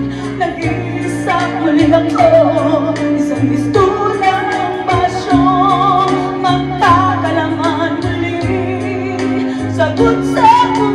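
A woman singing into a handheld microphone over instrumental accompaniment, her held notes wavering with vibrato.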